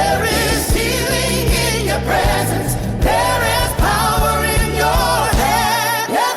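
Gospel worship song: a choir singing held, vibrato-laden notes over a steady beat and bass line. The bass drops out briefly near the end.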